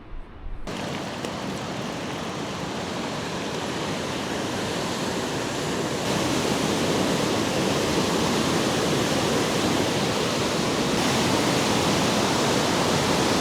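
Steady rushing noise that gets louder in two steps, about six and about eleven seconds in.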